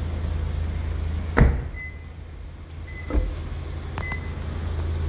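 A steady low rumble with two thumps: the first loud and sharp about a second and a half in, the second softer about three seconds in. From about two seconds in, short high beeps repeat roughly once a second.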